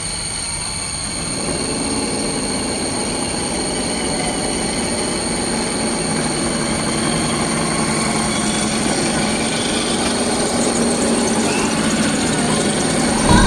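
Radio-controlled crawler trucks driving over rough ground: a steady high whine from the electric drive over a rumbling, grinding noise of gears and tyres, which grows louder about a second and a half in.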